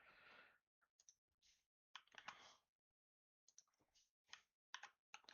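Near silence, broken by a few faint short clicks.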